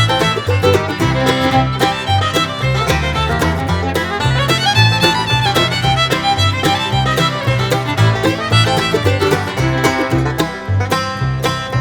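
Instrumental background music in a bluegrass style, fiddle and banjo over a steady, bouncing bass beat.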